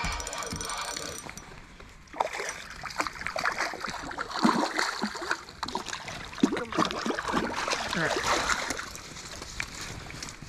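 Spinning reel being cranked, a fast run of fine ticks for about the first second. Then a hooked trout splashing and thrashing at the water's surface as it is drawn to the landing net and scooped up.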